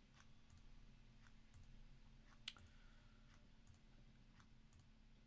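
Computer mouse button clicked repeatedly, a series of faint sharp clicks roughly every half second, as a list is re-randomized nine times.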